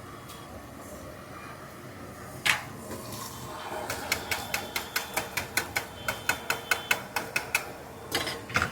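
A single knock, then a fast, even run of about five sharp taps a second from a cooking utensil striking a hard surface during street-stall egg preparation, and two more knocks near the end.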